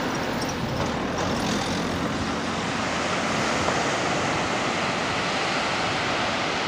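Steady wash of sea surf breaking on rocks, with the faint hum of a boat's outboard engine in the first couple of seconds.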